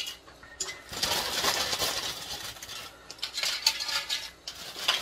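Handfuls of thin potato slices clattering into a roasting pan: a dense rattle with small clinks.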